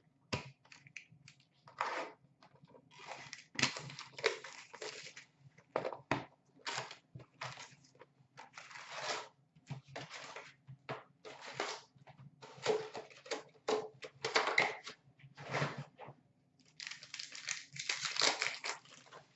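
Trading-card packs being handled: crinkling wrappers and cards rustling and sliding in a string of short bursts, with a longer run of crinkling near the end.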